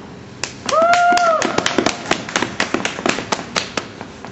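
Sparse applause from a small crowd: separate sharp claps, a few a second, that start about half a second in and thin out near the end. Just before a second in, one voice gives a short, high-pitched shout.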